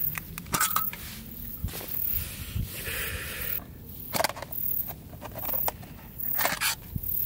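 Camping gear and packs being handled by hand: a run of small clicks, knocks and scrapes, with a longer rustle about three seconds in.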